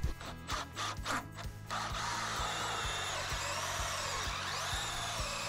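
Makita drill spinning a 2-1/2-inch Lenox hole saw into a wet pressure-treated sill plate. A few clicks and knocks come first, then about a second and a half in the drill runs steadily, cutting, with a wavering whine.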